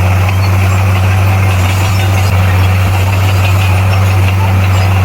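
Bulldozer's diesel engine running at a steady, even drone, with no change in engine speed.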